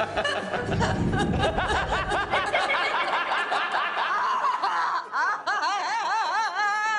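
A woman laughing giddily. In the last two seconds her laugh turns into a quick, regular string of high-pitched 'ha's, about four a second.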